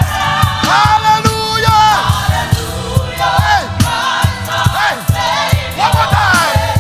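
Gospel choir singing with a live band, held notes over a steady drum beat.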